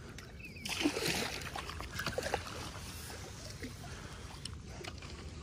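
Hooked catfish splashing at the water's surface close to the bank, with the biggest burst of splashing about a second in and a few smaller splashes a second later.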